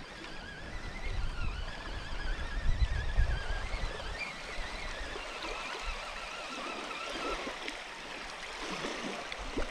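Water splashing and lapping at the shoreline as a hooked perch is played in close to the bank, with wind rumbling on the microphone. A thin wavering whine runs through the middle part.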